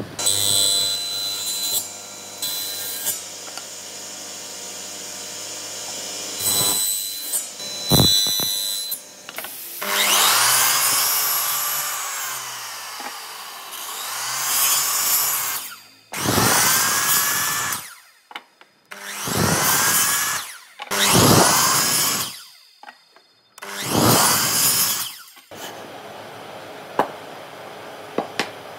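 Electric miter saw run in about six short bursts in the second half. Each time the motor spins up with a whine, the blade cuts into the end of a softwood board, and the motor winds down again. These are repeated kerf cuts for a notch. Lighter handling sounds of wood come before the cuts.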